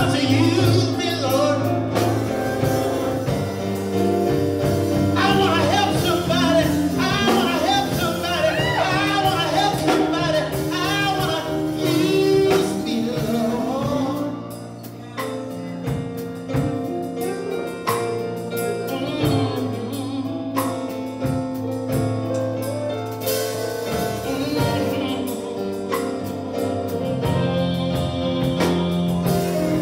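Live gospel music: a lead voice singing into a microphone over sustained chords from the accompanying instruments. The melody is busiest in the first half, and the music dips briefly around the middle.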